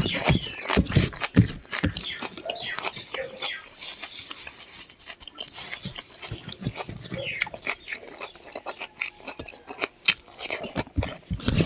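Close-miked mouth sounds of a person biting and chewing spicy pork with rice: a run of irregular small clicks and wet mouth noises, busiest about the first two seconds and again near the end.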